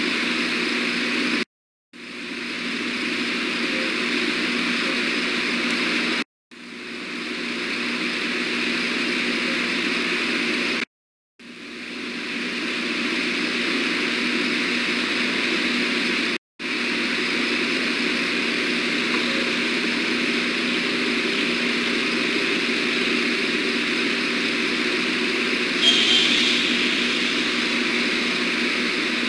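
Steady rushing outdoor background noise with a faint hum, picked up by the osprey nest-cam microphone. The sound cuts out completely four times, each time swelling back in over about a second, and a brief sharp sound comes near the end.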